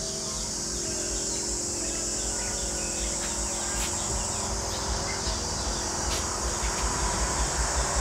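Insects chirring in a steady high-pitched drone, with low thumps underneath that come more often in the second half.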